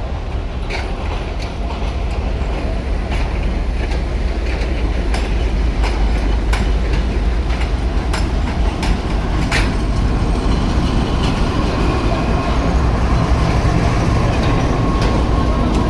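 Passenger train rolling into a station: a steady low rumble with wheels clicking over rail joints, and a faint steady squeal of wheels or brakes in the second half.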